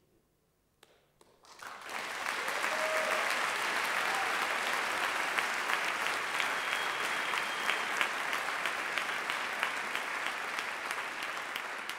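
Audience applause, starting about two seconds in after a short hush, holding steady, then easing a little near the end.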